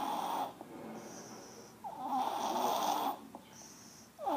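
A person snoring in a steady rhythm: loud, rasping snores about a second long, one every two seconds or so, with quieter breaths in between.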